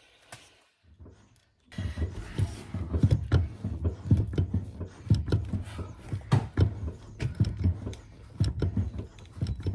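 Brake pedal being pumped repeatedly to push the caliper pistons out and seat the new front pads against the rotors: a run of irregular knocks and clicks over a low rumble, stopping near the end.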